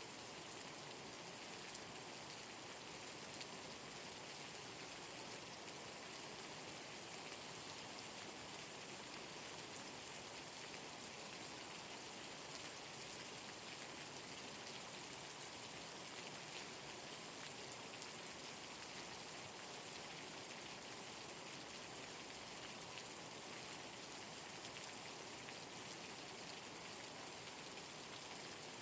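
Steady rain falling: an even, unbroken hiss with scattered sharper drop ticks.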